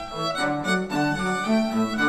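Instrumental music led by bowed strings, violin over lower cello-like notes, played back through a headphone and picked up by microphones.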